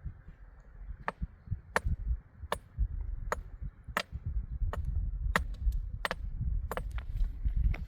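Repeated sharp chopping strikes at a steady pace, about three every two seconds, over a low rumble.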